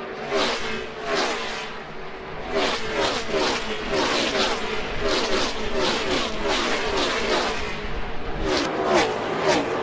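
A stream of Gen 6 NASCAR V8 race cars passing at speed one after another, each engine note dropping in pitch as it goes by, about two cars a second.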